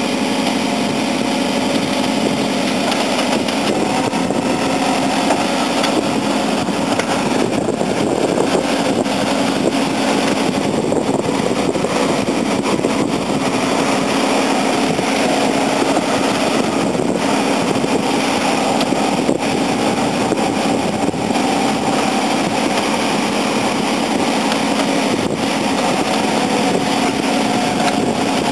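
Heavy diesel earthmoving machinery running steadily, the engines of a backhoe loader and a crawler bulldozer working to free the stuck dozer.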